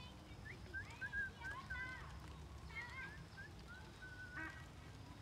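Birds calling: short, thin, pitch-bending calls repeat in quick succession over a steady low rumble.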